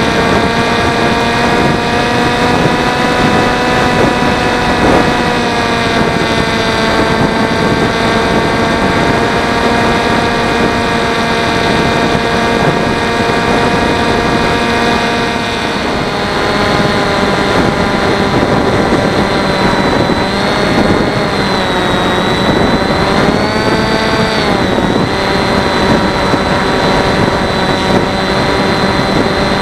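Electric motor and propeller of a Teksumo flying wing whining steadily in flight, heard through the plane's onboard camera with a rush of wind noise. The pitch drops about halfway through and wavers a few times later as the throttle changes.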